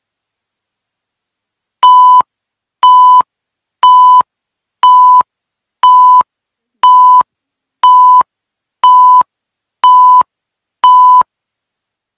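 Broadcast countdown tone: after silence, ten short, loud 1 kHz beeps, one a second, starting about two seconds in.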